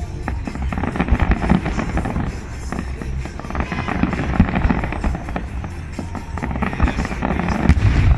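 Aerial fireworks display: shells bursting one after another in a dense, continuous barrage of bangs and crackling, with music playing along.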